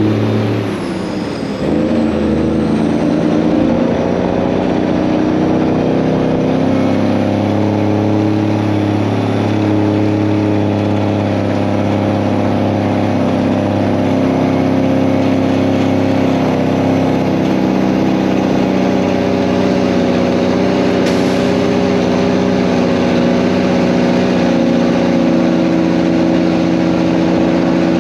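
Heavy diesel farm-vehicle engine running steadily, its pitch sliding and its level dipping briefly about a second in before settling back to a steady run.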